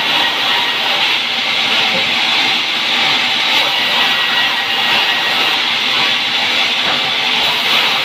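Sawmill band saw ripping a pine board lengthwise: a loud, steady, high-pitched rushing noise from the blade cutting through the wood, with no let-up.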